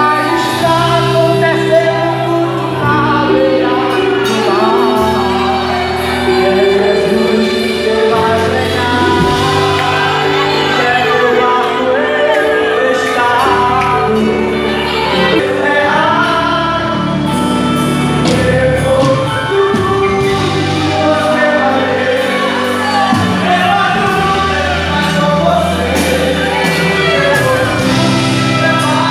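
Gospel worship music: singing over steady instrumental accompaniment with sustained bass notes, carried through a large church hall.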